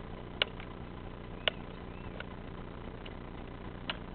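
Husqvarna 40 chainsaw's two-stroke engine idling with a steady low hum, and several sharp clicks spaced irregularly through it.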